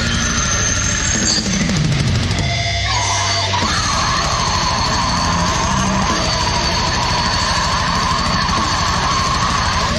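Extreme metal song: distorted guitars over rapid double-kick drumming, with harsh screamed vocals. The drums drop out briefly about three seconds in.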